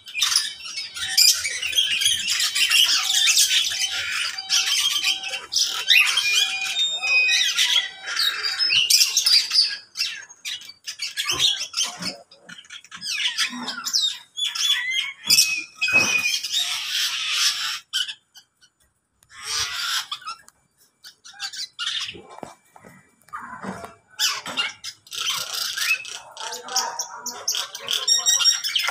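A mixed aviary of lovebirds, parakeets, mynas and starlings squawking and chattering together in many overlapping high-pitched calls, with a brief lull about two-thirds of the way through.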